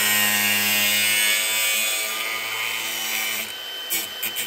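Milwaukee cordless angle grinder with a cutting disc grinding through trim at the edge of a car's front grille: a steady motor whine with a hissing cut, easing off briefly near the end.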